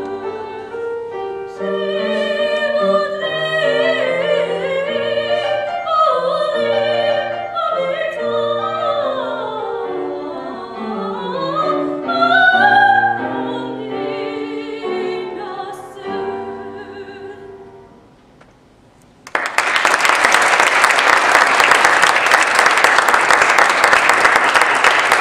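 A classically trained singer with piano accompaniment sings the closing phrases of a song. The music fades out, and after a brief hush the audience breaks into steady applause about three-quarters of the way through.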